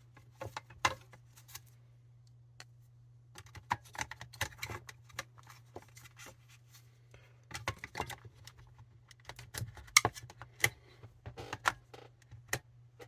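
AA batteries and the radio's plastic parts being handled and fitted, making scattered clicks, taps and small rattles in several bursts.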